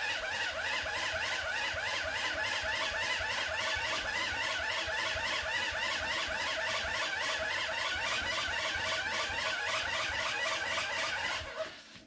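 Hand-crank dynamo of an emergency radio being wound to generate charge: a rhythmic mechanical whirring of the crank's gearing, pulsing several times a second, that stops suddenly near the end.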